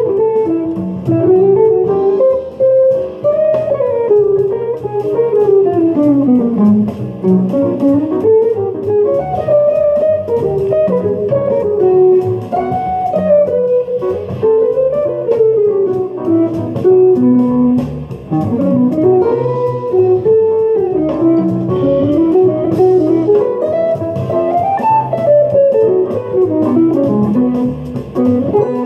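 Semi-hollow electric guitar playing a fast single-note jazz solo, with long runs of quick notes climbing and falling. Lower notes sound steadily underneath.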